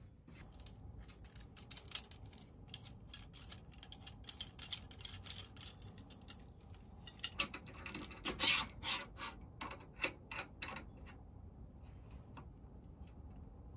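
A tent zipper and fabric being worked by hand while a zip-on clear urethane window panel is fitted: a run of rasping clicks and rustles, densest and loudest about eight seconds in, stopping about three seconds before the end.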